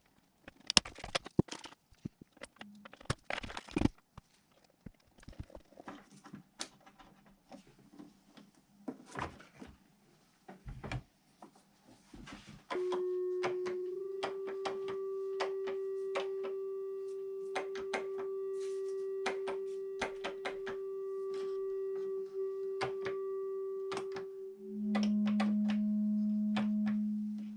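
Scattered clicks and taps, then about halfway in a steady, pure mid-pitched feedback tone from a DigiTech RP-1 multi-effects processor run as a no-input feedback loop, stepping up slightly in pitch. Near the end it switches to a lower, louder tone, with clicks continuing over it.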